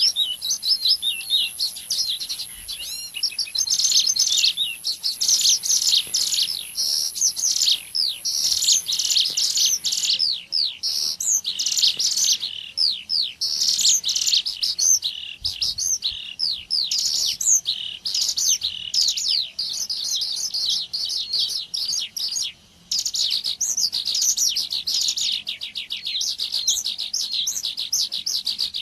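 Dense, rapid high-pitched chirping and trilling of small songbirds, a lure recording of ciblek gunung (mountain prinia) calls mixed with other call types. A thin steady high tone sits under the calls and stops about ten seconds in, and the sound drops out briefly a little after twenty seconds.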